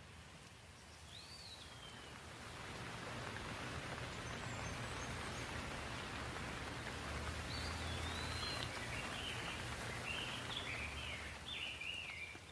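Birds chirping over a rushing outdoor noise that swells after a couple of seconds and eases near the end: one short rising-and-falling call about a second in, then a quick run of chirps toward the end.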